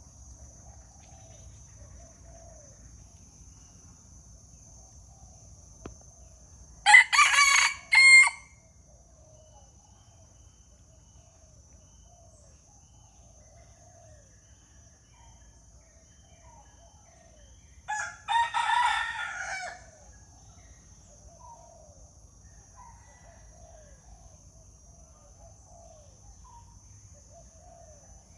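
A rooster crowing twice, about ten seconds apart, each crow lasting a second or two. Faint short chirps and a steady high-pitched tone continue underneath.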